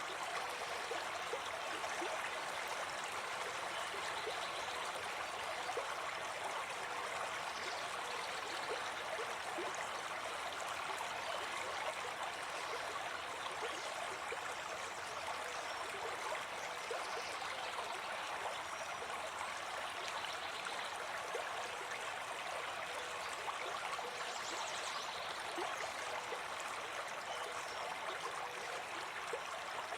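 A forest stream running steadily: a continuous babble and gurgle of water flowing.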